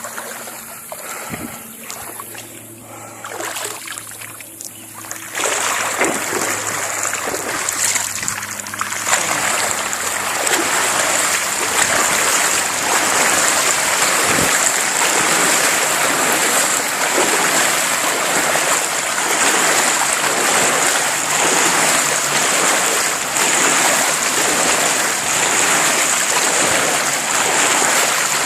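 BMX bike tyres ploughing through ankle-deep floodwater: a steady rush of splashing water that jumps in loudness about five seconds in and keeps on.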